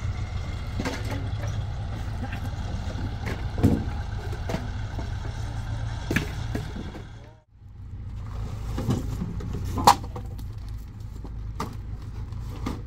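A motor vehicle's engine running steadily, with scattered knocks and clicks over it; the sound drops out briefly a little past halfway, then carries on.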